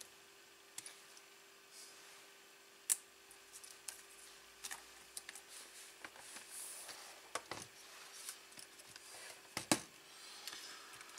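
Scattered light clicks and taps of small screws, a screwdriver and sheet-metal plates being handled while small bolts are fitted to the LCD panel's metal backplate, with a sharper click about three seconds in and another near ten seconds. A faint steady hum runs underneath.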